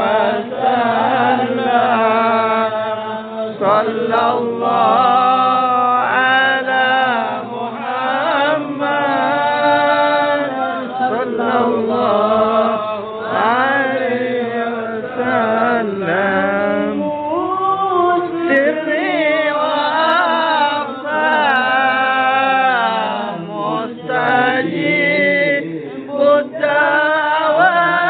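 Men chanting sholawat, Arabic devotional praise of the Prophet, in long, melismatic phrases. One voice leads into a handheld microphone and others sing along.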